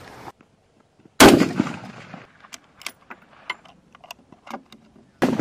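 Two rifle shots about four seconds apart, each a sharp crack that dies away over about a second, with faint clicks between them; the second comes near the end.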